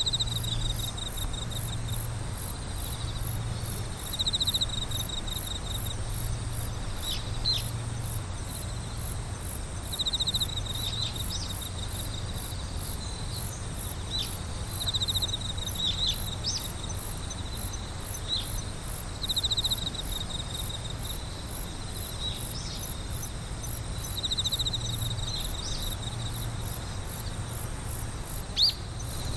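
Night insects chirping in a chorus of crickets: a very high chirp pulses steadily about three times a second, while a lower trill comes in bursts every few seconds, with scattered short sharp chirps.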